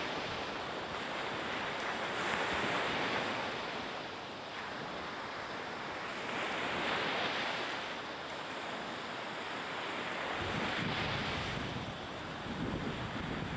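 Rushing wind and sea noise, a steady hiss that swells and eases every few seconds, with a low buffeting rumble near the end.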